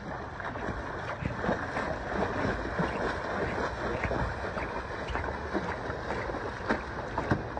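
Stand-up paddle strokes and a foil board splashing through flat water, many irregular splashes as the board gets up to speed, with wind rumbling on the microphone.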